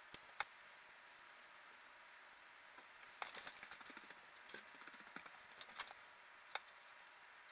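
Near silence over a steady hiss, broken by faint scattered clicks: two just after the start, an irregular cluster of small ticks in the middle, and one more click near the end.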